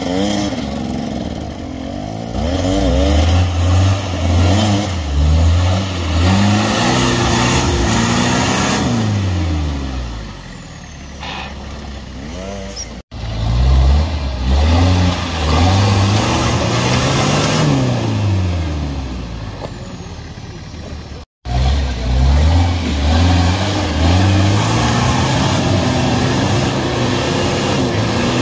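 Off-road 4x4's engine revving hard again and again, each rev rising and falling, as it crawls up a rocky slope under heavy load. The sound drops out for an instant twice.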